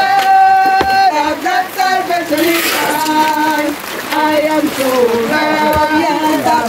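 Several voices singing together, holding long notes and sliding between pitches.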